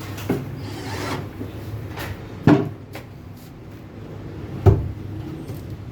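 Three sharp wooden knocks about two seconds apart, like a cabinet door or a board being knocked shut, over a steady low hum.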